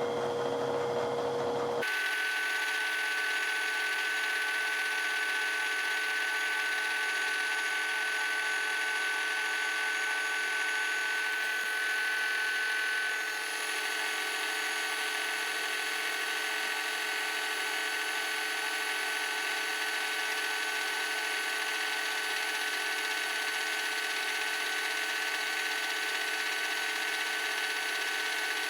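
Milling machine running in reverse with an upside-down fly cutter taking fine facing cuts on a brass fork yoke: a steady machining drone with a high whine. The sound changes abruptly about two seconds in, and the whine drops away about thirteen seconds in.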